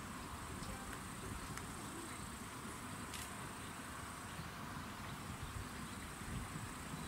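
Faint outdoor ambience: insects in the surrounding trees keep up a thin, steady high chirring, over a low rumble, with a few faint clicks.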